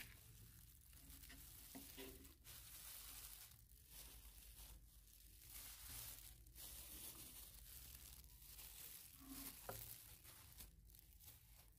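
Near silence with faint rustling and crinkling from a plastic food-prep glove as chopped spring onions are swept off a wooden cutting board into a bowl, over a low steady hum.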